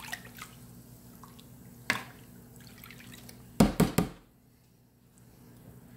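Caustic soda bath fizzing and dripping as it strips anodizing from aluminium parts, with scattered small clicks. A sharp knock about two seconds in and three quick, louder knocks near the middle.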